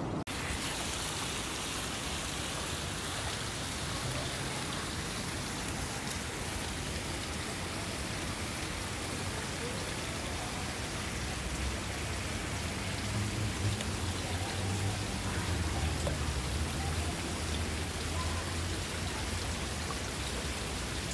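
Steady hiss of falling or splashing water, with a low rumble partway through.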